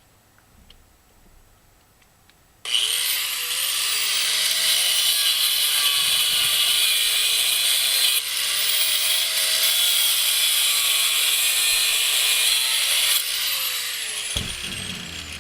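Angle grinder switched on about two and a half seconds in, spinning up and grinding rusted steel screws out of a brass faucet, with a brief dip midway; it is switched off and spins down near the end.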